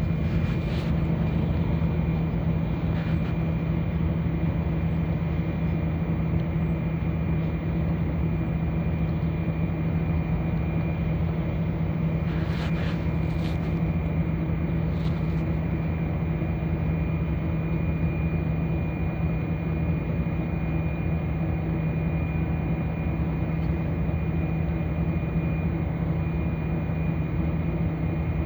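Steady drone of a city bus heard from inside the cabin, with a low engine hum and a faint high whine. There are a few short clicks or rattles about halfway through.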